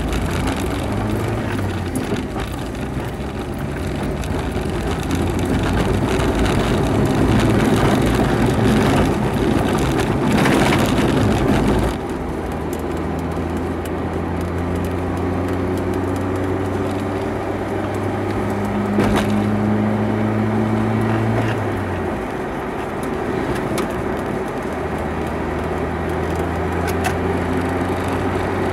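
Cabin sound of a Renault Supercinq Campus being driven hard on a wet road: the small four-cylinder engine runs under load beneath a rough rumble of tyres and road, and the rumble drops away suddenly about twelve seconds in. The engine note then holds steady, breaks off briefly a little past twenty seconds, as at a gear change, and picks up again.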